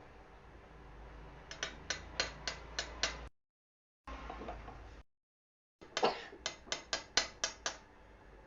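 Rapid sharp clicks, about four a second, in two short runs over a faint steady hum.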